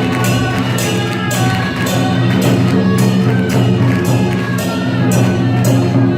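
Loud music with a steady drum-and-cymbal beat, about two to three strikes a second, over sustained instrumental notes.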